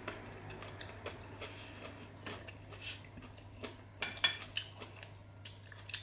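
Metal fork clinking and scraping against a cut-glass salad bowl: a string of light clicks, with a few louder ringing clinks about four seconds in.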